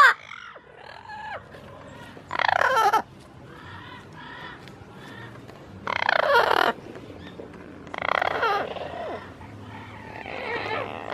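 Parrots calling: three loud calls a few seconds apart, each about half a second long, with softer cooing notes in between and another call near the end.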